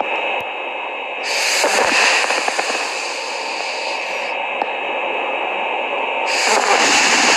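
Snoring: two long, noisy breaths, the first starting about a second in and the second about six seconds in, over a constant hiss.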